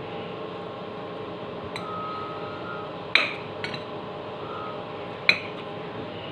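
Metal spoon clinking and scraping against a bowl while scooping food: two sharp clinks about three and five seconds in, with lighter taps between, over a steady background hum.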